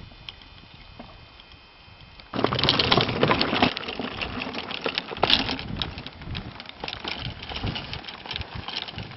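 Golf clubs rattling and knocking in a bag on a wheeled golf trolley rolling over fairway grass, starting suddenly a couple of seconds in and loudest just after it starts.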